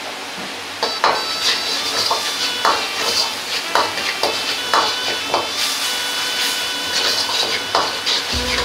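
Metal wok ladle stirring a tomato sauce in a wok, clanking and scraping against the pan with short ringing strikes at an irregular pace of about two a second, over the sizzle of the sauce cooking on the heat.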